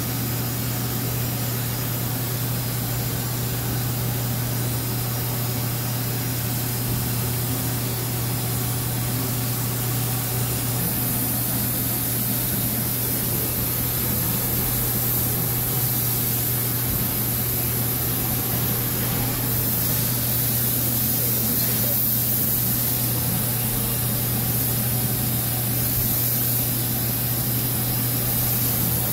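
Fadal 6030 vertical machining center running with coolant spraying inside it: a steady low hum under a hiss of spray that grows louder about eleven seconds in.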